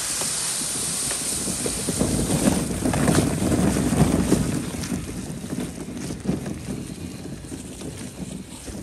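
Wind buffeting the microphone over the rustle and rumble of a plastic wagon towed through dry leaves and across grass behind a child's small dirt bike. It is loudest a few seconds in and grows fainter after about five seconds as they move away.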